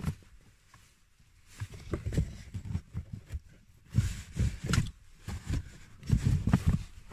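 A new cabin air filter being picked up off a rubber floor mat and moved about by hand, with scattered soft knocks and rustles. They are busiest about four seconds in and again near the end.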